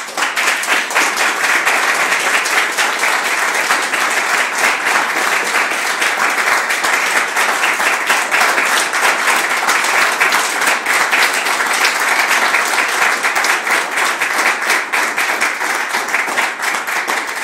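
Roomful of people applauding: dense, steady hand-clapping that starts abruptly and eases off slightly near the end.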